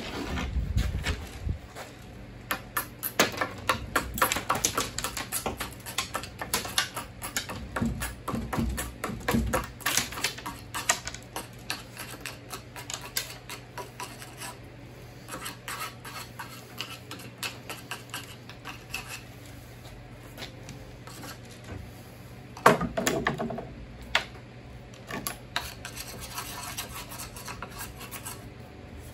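Metal hand tool scraping and scratching over the surface of a freshly cast statue, cleaning off seams and rough spots in short irregular strokes, with one louder knock near the end.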